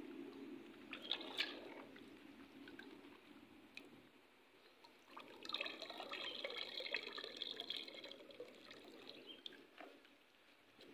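Water splashing and trickling as small anchovies are rinsed in a plastic pot dipped in a stream, with a few sharp taps about a second in. From about halfway through, water pours out of the tipped pot back into the stream for a few seconds.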